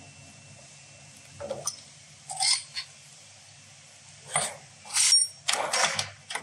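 Steel tool and metal parts on an injector test bench clinking as they are handled: a string of six or seven short clinks, the loudest near the middle and near the end, a couple of them ringing briefly.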